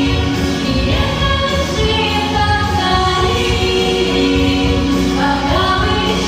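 Music: several voices singing a song together over steady instrumental backing, the notes held and sliding.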